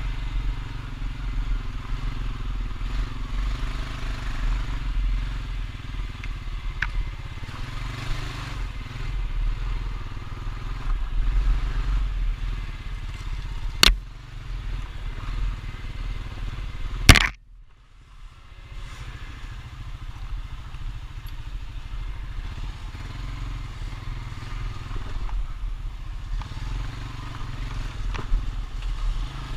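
Honda Rancher ATV's single-cylinder engine running steadily as it rides. Two sharp knocks come about halfway through, a few seconds apart, and the second is followed by a moment of much quieter sound.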